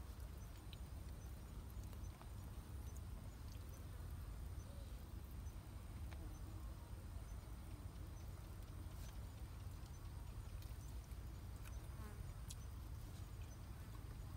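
Faint night-time forest ambience: a thin, steady high-pitched insect drone over a low rumble, with a few small clicks and taps scattered through it.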